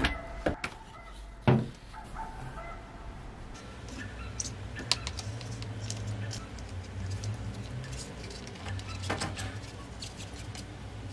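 A plastic clothes-dryer lint filter being handled. There are a few sharp clicks in the first two seconds, then light ticks and rubbing as lint is picked off the mesh by hand, with a low steady hum underneath.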